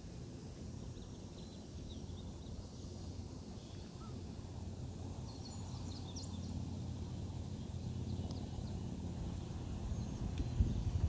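Open-air lakeside ambience: a steady low rumble that grows slowly louder, with a few faint, short high bird chirps in the middle and a couple of low bumps near the end.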